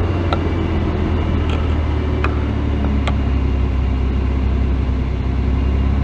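1999 Ford Explorer's 4.0L SOHC V6 running rough at idle, heard from inside the cab, with a few faint ticks. The rough idle comes from a lean condition, with long-term fuel trims around +20%, that the owner traced to a vacuum leak.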